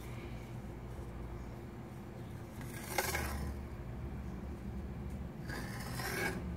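Handling noise from a plastic sun visor and a carbon fiber sheet on a cutting mat: a sharp click about three seconds in and a short rustle near the end as the visor is lifted away, over a steady low hum.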